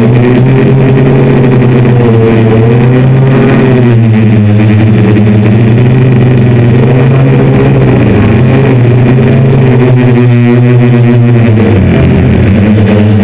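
Six brushless motors (Turnigy NTM 750Kv) spinning 10-inch APC propellers on a hexacopter, droning loudly as heard from a camera on the frame. The pitch wavers a couple of times and dips briefly near the end as the motors change speed.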